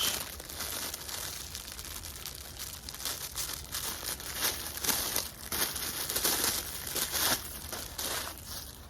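Plastic packaging crinkling and rustling in irregular bouts as it is handled and pulled open.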